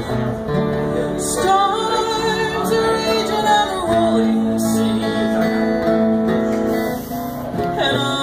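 Live acoustic band: several acoustic guitars strummed together, with a woman singing over them.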